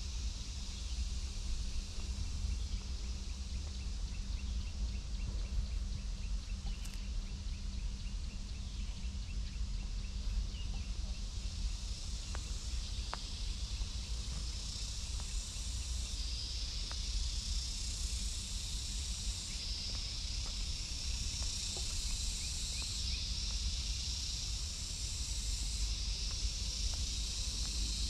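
Outdoor ambience of a high, steady insect buzz that grows louder about halfway through and then swells and fades in waves every few seconds, over a steady low rumble.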